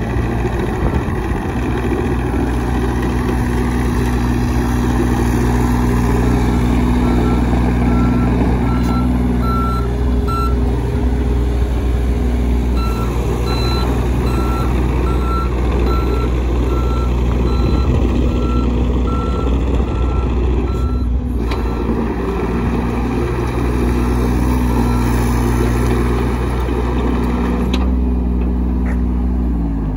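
John Deere 35G compact excavator's diesel engine running steadily as the machine tracks about, with its travel alarm beeping in a regular series that runs twice, stopping briefly in between, and falling silent about two-thirds of the way through.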